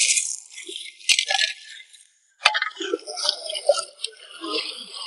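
Small freshwater clams clattering against one another as hands scoop them in a bamboo basket. After a brief break about two seconds in, water sloshing as the clams are rinsed in the basket in the river.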